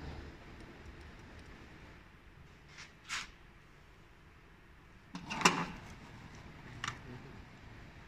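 Short plastic clicks and rattles of a car's wiring harness and connectors being handled: a pair about three seconds in, a louder, longer rattle about five and a half seconds in, and one more click near the end.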